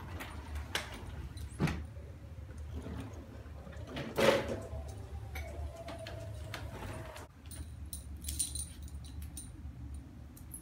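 A sliding glass patio door being opened and a manual wheelchair rolling in over its track, with several knocks, the loudest about four seconds in. Near the end, light metallic jingling of a dog's collar tags and leash.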